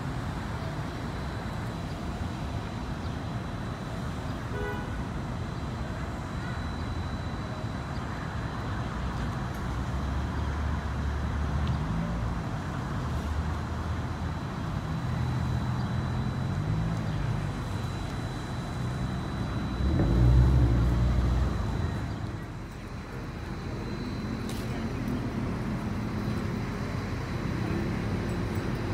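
Street traffic: cars driving past with their engines and tyres making a steady noise, and a louder, deeper vehicle rumble swelling and passing about twenty seconds in.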